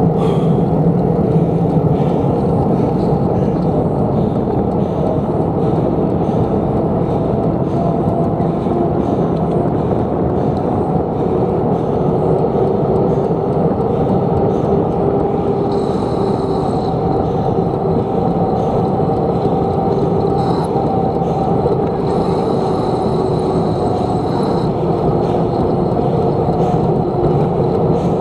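Steady rumbling wind and rolling noise from a moving bicycle, heard from a camera riding along with it. A brief higher hiss comes in about 16 s in and again from about 22 to 25 s.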